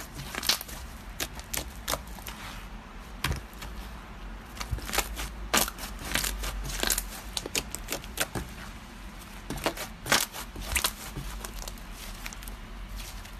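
Slime being pressed and squished by hand, giving irregular crackling pops and clicks, busiest in bursts around the middle and about ten seconds in.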